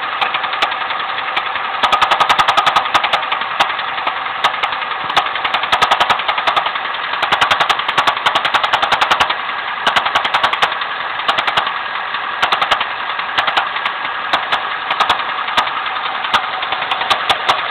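Engine running with a rapid, sharp metallic knock that comes and goes in clusters every second or two. The owner says this knock disappears at 1700–1800 rpm.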